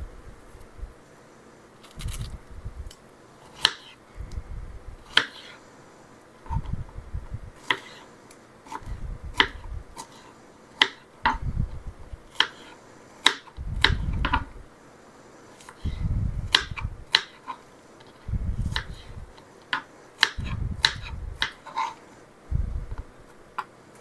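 Kitchen knife dicing strawberries on a plastic cutting board: short runs of quick chops every second or two, with sharp clicks of the blade striking the board.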